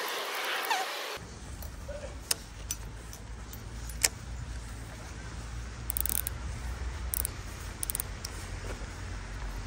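Footsteps through grass and weeds with scattered light clicks and rattles of fishing tackle, over a steady low rumble of handling on the microphone. A hissing sound in the first second cuts off abruptly.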